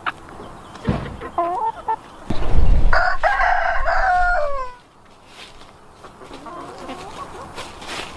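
A rooster crowing once: a crow of about two seconds that drops in pitch at the end, after a few short clucks.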